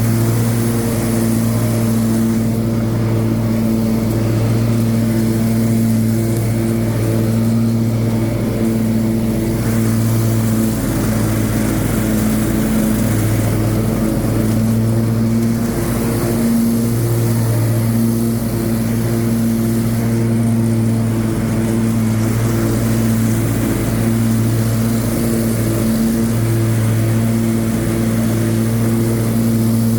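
Troy-Bilt Mustang zero-turn mower's 25 horsepower Briggs & Stratton engine running steadily at an even speed, with a few slight dips.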